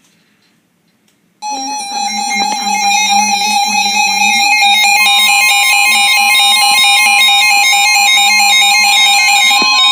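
Synthesizer music starts suddenly about a second and a half in and plays on loudly over a held high steady tone, with a second steady tone joining about halfway through.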